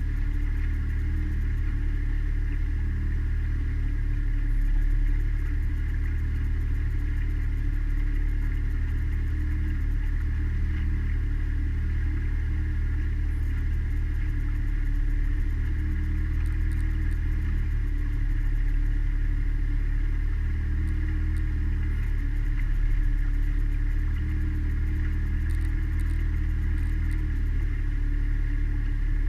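Mariner outboard motor running steadily while driving the boat along, heard from aboard.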